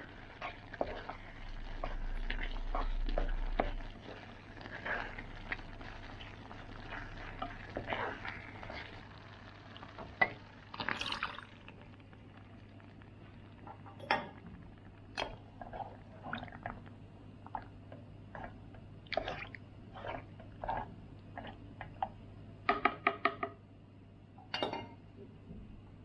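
Thick curry bubbling in a nonstick pan, stirred with a wooden spoon, with water poured in to thin it. In the second half there are scattered sharp knocks of the spoon against the pan.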